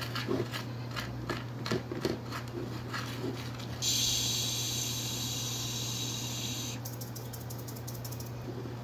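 Pork cracklings frying in hot fat: a run of crackling pops, then a louder sizzling hiss that starts suddenly about four seconds in and dies away about three seconds later, giving way to finer crackling.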